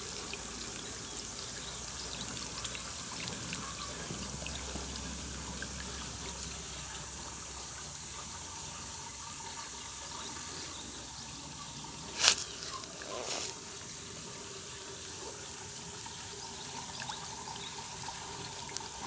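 Steady trickling of water at a fish pond, with two short knocks a little past halfway.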